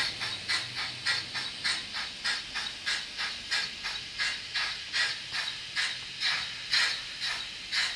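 Model steam locomotive chuffing, a steady run of short hissing puffs that slows from about three or four a second to about two a second.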